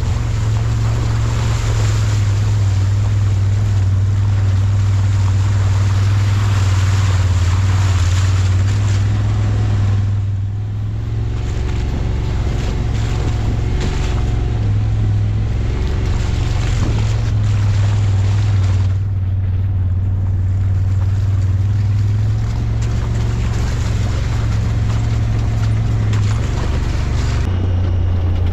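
A vehicle's engine running steadily at speed under heavy wind noise on the microphone, easing off briefly about ten seconds in.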